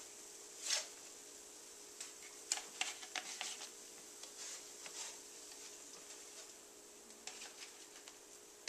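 Pancakes sizzling faintly on an electric griddle while a plastic slotted spatula scrapes and taps on the griddle plate, sliding the cooked pancakes off onto a plate in a few short clicks and scrapes, over a steady hum.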